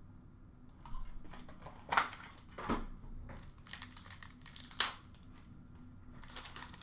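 Trading cards and their packaging rustling and crinkling as they are handled, in about six short bursts.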